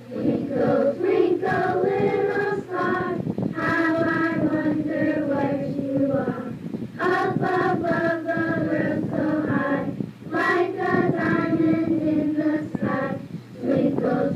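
Children's choir singing a song in phrases a few seconds long, with short breaks between them.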